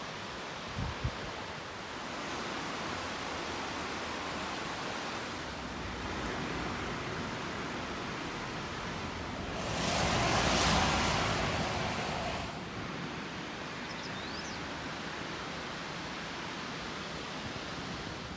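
Steady hiss of falling rain, with a louder rushing swell for about three seconds near the middle.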